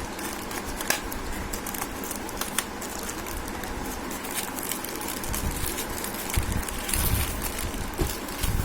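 Rustling and crackling of packaging being handled and pulled open during an unboxing, with many irregular small clicks.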